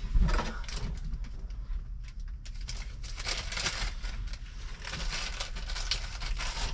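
Rustling and scratchy clicking from small objects being handled, a dense run of short rustles over a steady low rumble.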